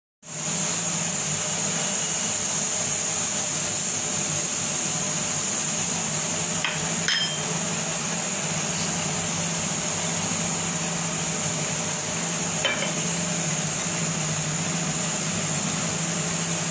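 Steady hiss over a low hum, with a few faint clicks about 7 and 13 seconds in.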